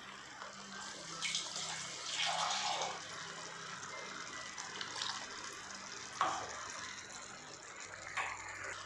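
Water being poured into a pan of hot tomato-onion gravy, splashing and bubbling, with several brief louder moments.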